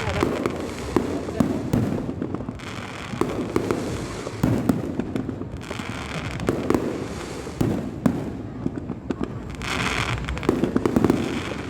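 Fireworks display: an irregular run of sharp bangs from bursting shells, with hissing, crackling stretches a second or two long between them.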